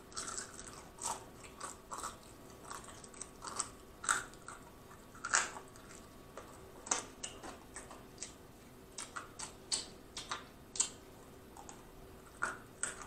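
Close-miked chewing of a crispy fried chicken wing flat: irregular crunches and wet mouth smacks, a dozen or more sharp crackles spread unevenly through the chewing.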